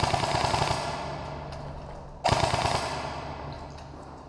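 Two bursts of rapid airsoft gunfire, one at the start and one a little over two seconds in. Each starts suddenly and tails off over about two seconds.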